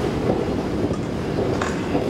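Steady low mechanical rumble in the metro station, with a short clack about one and a half seconds in.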